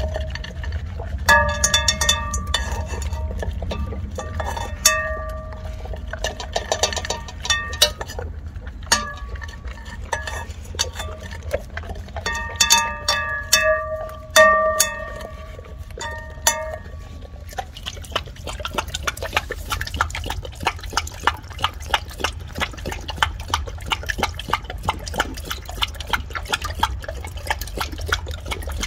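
Labrador retriever licking an empty stainless steel bowl, which rings with each knock of its muzzle and tongue. About 18 seconds in, this gives way to quick, steady lapping of water.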